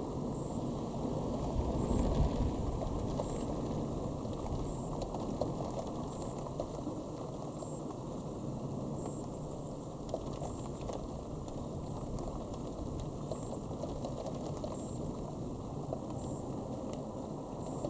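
A low rumble of distant thunder swells about two seconds in, over a steady rushing background with scattered faint ticks.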